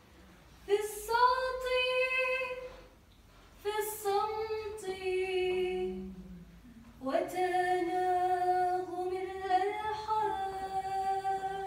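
A woman's voice singing a slow hymn, with no instruments heard: three long phrases on drawn-out, held notes, the last beginning about seven seconds in.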